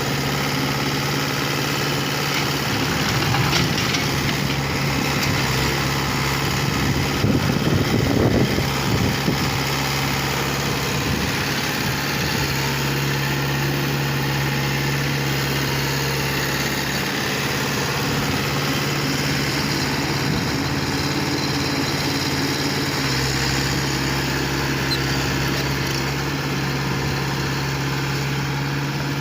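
Engine of a heavy earthmoving machine, most likely a JCB 3DX backhoe loader, running steadily near idle, with short louder stretches about three and eight seconds in.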